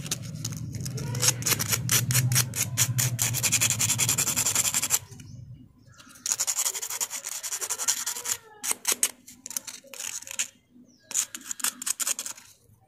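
Emery paper rubbed in quick back-and-forth strokes over a small steel sewing-machine shuttle part, smoothing away scratch marks worn into it. The scratching runs steadily for about five seconds, stops briefly, then goes on in shorter spells with small pauses.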